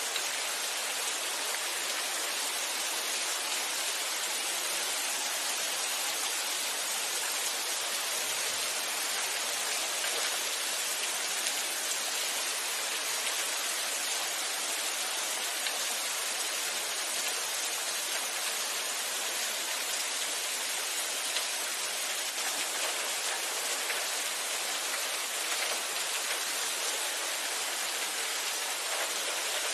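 Steady rain falling, an even hiss of countless drops with no breaks or changes.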